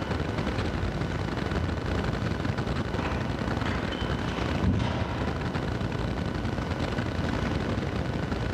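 Steady low rumble and hiss of background room noise, with no distinct events.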